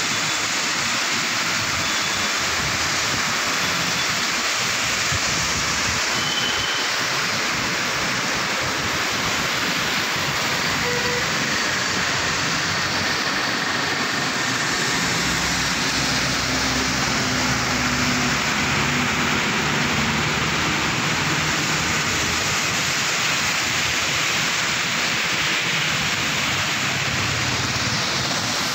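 Heavy rain pouring steadily, with tyres hissing through standing water as cars and auto-rickshaws drive along a flooded road. A low engine hum from a passing vehicle comes in around the middle.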